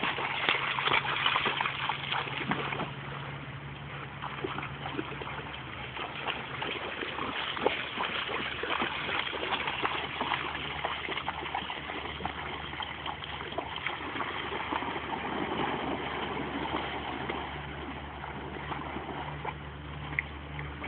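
River water splashing and running, with many small irregular splashes throughout and a steady low hum underneath.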